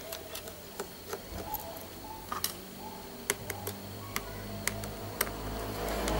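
Small, sharp, irregular clicks and ticks of a precision screwdriver working the tiny screws out of a smartphone's plastic board cover. A low drone comes in about four seconds in and grows louder near the end.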